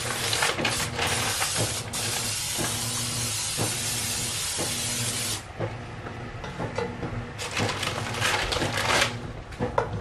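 Aerosol cooking-oil spray hissing steadily into a cast iron skillet for about five seconds, then stopping. After it, a plastic bag crinkles and there are light knocks as frozen biscuits are set in the pan.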